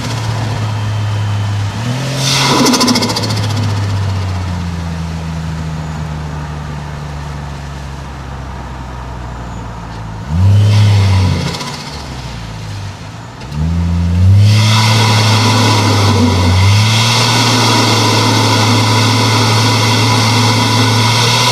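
Turbocharged 1JZ-GTE straight-six engine and exhaust on the move, the engine note rising and falling as it revs up and eases off between gear changes. A brief fluttering hiss comes about two and a half seconds in and again around ten seconds, and the engine runs loud and steady through the last several seconds.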